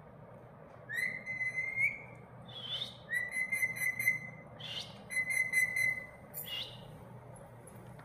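Rose-ringed (Indian ringneck) parakeet whistling: three long, level whistles, each followed by a short rising note.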